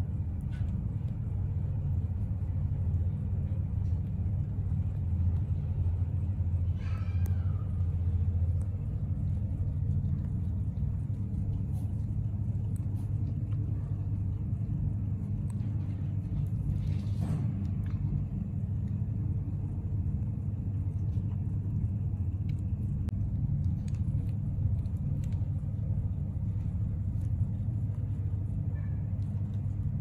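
British Shorthair mother cat purring steadily while nursing her newborn kittens, a low, even rumble, with faint clicks from the kittens suckling and a brief high faint sound about seven seconds in.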